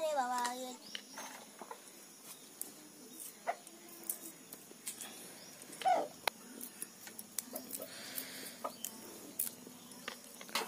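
A chicken calls loudly right at the start, with a few shorter calls later. Between them come scattered faint crackles and clicks of fingers peeling the papery skins off garlic cloves.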